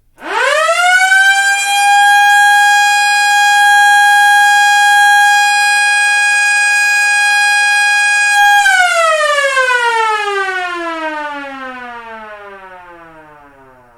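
1950s American police siren, a motor-driven rotor siren, winding up fast to a steady high wail just after the start and holding it for about eight seconds. It then winds down in a long falling glide that fades away near the end.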